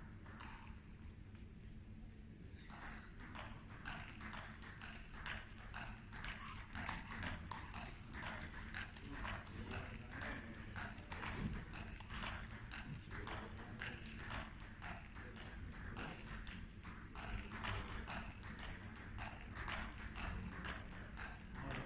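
Table tennis balls clicking off tables and bats in quick, irregular strings of overlapping rallies, sparse at first and thickening from about three seconds in.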